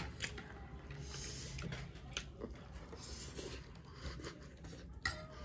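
Two people eating chow mein: noodles slurped in twice, with chewing and a few sharp clicks of forks and spoons against the plates.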